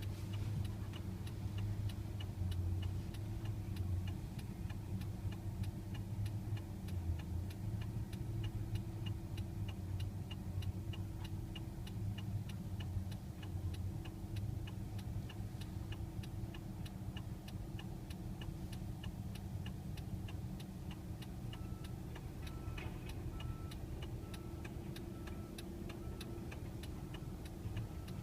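Bulldozer's diesel engine running steadily, with a fast, even ticking throughout. A repeating beep starts about three-quarters of the way through.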